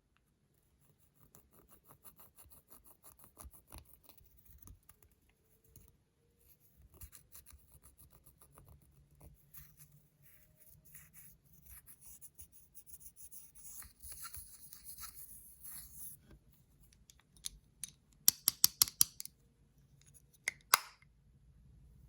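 Close-up handling of makeup and slime: faint crackling and scraping, then a quick run of about six loud sharp clicks near the end, followed by two more.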